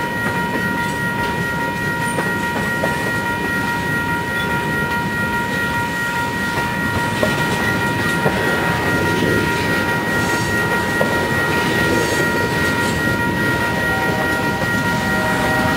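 Freight train cars, tank cars and boxcars, rolling steadily past a grade crossing: a continuous rumble and clatter of steel wheels on rail with scattered light knocks. A steady high ringing tone sits over it, and a lower tone joins near the end.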